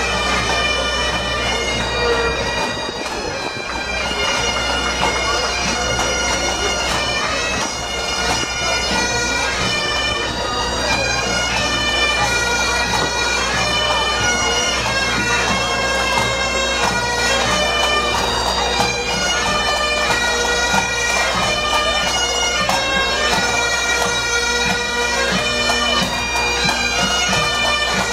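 Bagpipes playing a marching tune over their steady, unbroken drones.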